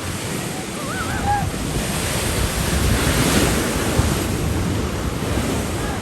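Ocean surf washing onto the shore, with wind buffeting the microphone; a wave swells loudest about three seconds in.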